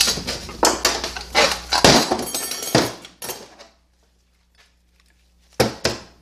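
Metal clutch plates and frictions from a 4T65-E automatic transmission clinking and clattering against each other and the clutch hub as they are handled, then two sharp knocks near the end.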